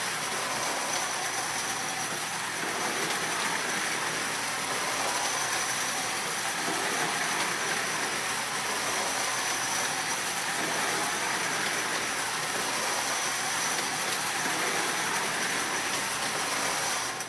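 Marx tinplate streamlined diesel toy train running on metal O27 three-rail track: a steady whirring motor and wheel rattle with a thin, high, constant whine. It cuts off suddenly at the end.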